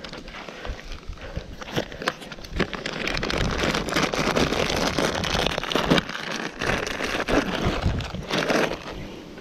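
Thin plastic bag crinkling and rustling in the hands as a coil of nylon rope is pulled out of it, a dense run of small crackles that thickens a couple of seconds in.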